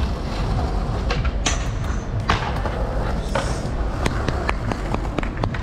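City street noise with a heavy low rumble of wind and vibration on the microphone, scattered with clicks and knocks. Two louder, harsher hits come about one and a half and two and a half seconds in.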